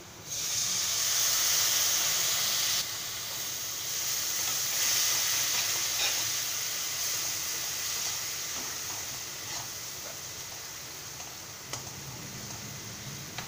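A little water poured into hot oil and fried onion-spice masala in a kadai, setting off a sudden loud hiss and sizzle. It is loudest for the first three seconds or so, then drops and slowly eases off while a slotted spoon stirs the pan with a few light knocks.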